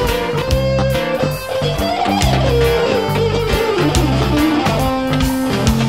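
Rock music: an electric guitar plays a melody with bent, gliding notes over a bass line and a steady beat.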